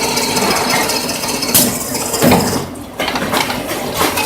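Multi-head drilling machine running a drilling cycle on a metal part: a steady mechanical whine with metallic clanks about one and a half and two seconds in. The running noise then drops briefly before picking up again.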